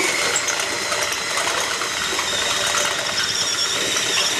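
An 18.5 mm RUKO ULTIMATECUT twist drill with FLOWSTEP tip, run in a drilling machine, cuts steadily into a steel tube without a pilot hole. The machine runs on with a steady cutting noise and a thin high whine over it.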